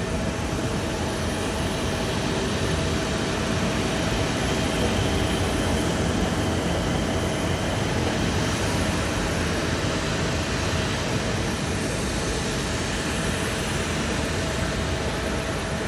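Steady roar of jet airliner engines, with a faint steady hum throughout, swelling slightly about a third of the way in.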